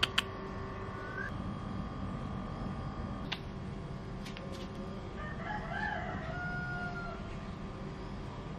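A rooster crowing once, faint and distant, beginning about five seconds in and ending in a held note about two seconds later. A couple of sharp clicks come right at the start, and another about three seconds in.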